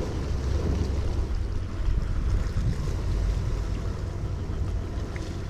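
Wind rumbling steadily on the microphone, over the continuous wash of sea surf against reef rocks.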